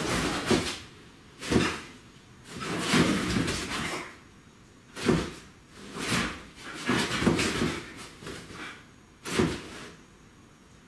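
Dogs romping on a bed: paws thumping and scuffling on the mattress in a series of short bursts, about eight over ten seconds, with quiet gaps between.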